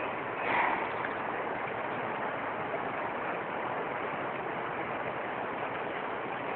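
Boise River in flood, running high and fast: a steady rush of water, with a brief louder swell about half a second in.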